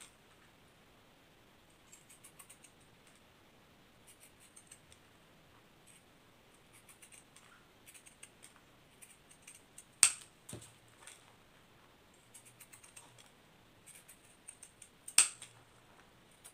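Scissors snipping through paper in short runs of small quick cuts, following a curved line. There are two sharper clicks, about ten seconds in and near the end.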